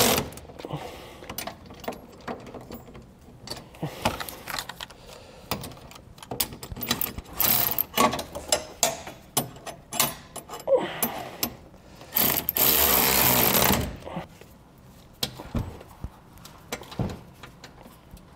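A cordless electric ratchet whirring as it runs nuts down with a 3/4-inch socket: one burst of about a second at the start and a longer burst of nearly two seconds about twelve seconds in. Between the bursts come scattered clicks and metal clinks from the socket and wrench on the bolts.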